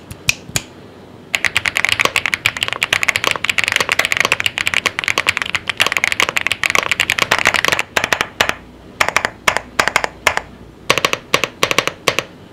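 Typing test on a Leobog Hi75 75% mechanical keyboard, with an aluminium case, a PC gasket-mount plate and Dark Plum linear switches. A few single keystrokes, then a fast continuous run of typing for several seconds, then slower, more spaced keystrokes near the end.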